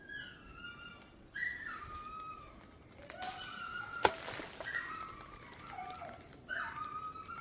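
A dog whining and yelping in a run of short, high-pitched cries that slide down in pitch, with one sharp crack about four seconds in.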